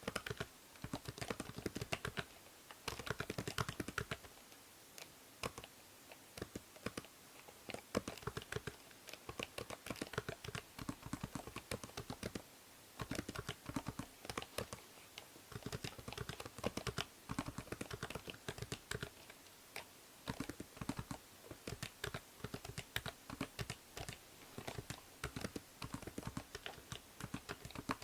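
Typing on a computer keyboard: rapid runs of key clicks with a couple of short pauses, over a steady hiss from a binaural microphone.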